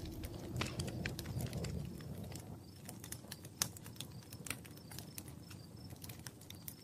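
Wood fire crackling, with irregular sharp snaps and pops over a low rush of flames, slowly fading.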